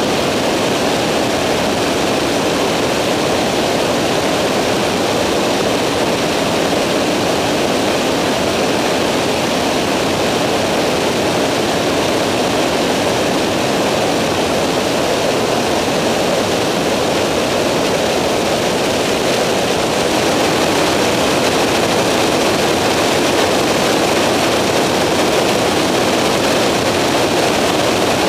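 Skyranger microlight in flight, its engine and propeller running steadily as a loud, even rushing drone heard from on board.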